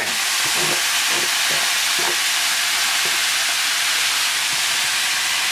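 Chopped onion, carrot, celery and garlic sizzling in hot oil in a skillet as they go in to sauté: a steady hiss.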